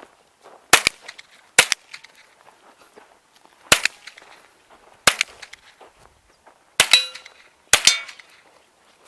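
Six single shots from a SIG 522 .22 LR semi-automatic rifle, fired one at a time at uneven intervals of about one to two seconds. A brief metallic ring follows the fifth shot.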